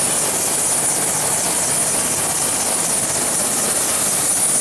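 Helicopter running on the ground with its main rotor turning: a loud, steady rush of rotor and engine noise with a thin, steady high whine over it.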